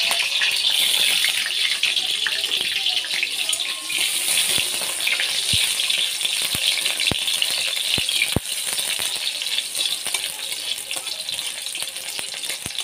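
Onions sizzling in hot oil in a metal kadai as they are stirred with a metal spatula, the start of frying them golden-red. Several sharp clicks of the spatula against the pan come in the middle.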